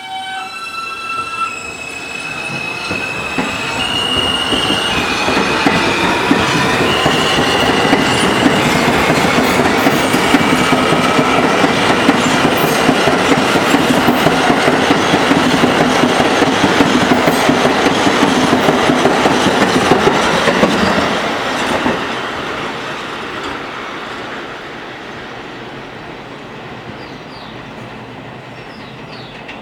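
R160 subway train pulling out of the station and accelerating past. Its electric propulsion whine rises in steps over the first few seconds, then loud steady wheel-on-rail noise builds as the cars go by at speed. The noise drops off about 21 seconds in as the last car clears and fades away.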